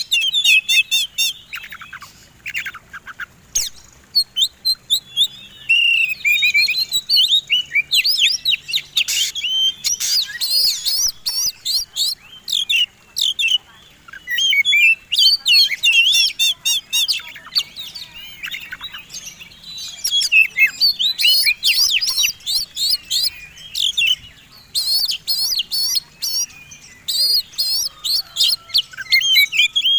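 Oriental magpie-robin song in the loud contest style: rapid, varied chirps, whistled glides and harsh notes in quick bursts, with short pauses between phrases.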